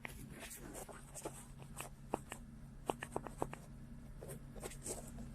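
Faint light tapping and scratching: a run of short clicks, several in quick succession about three seconds in, over a steady low hum.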